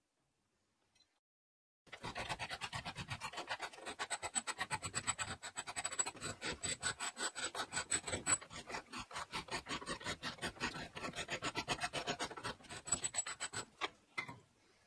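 A flat steel hand file rasping back and forth across a small steel piece held in a vise, in quick, even strokes. It starts about two seconds in and stops shortly before the end.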